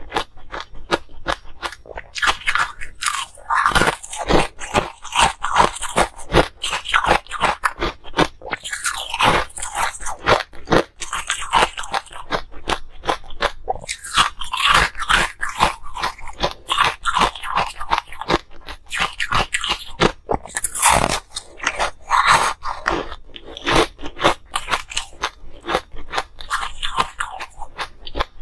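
Ice being bitten and chewed close to the microphone: a dense, steady stream of sharp crunches and cracks as the ice breaks between the teeth.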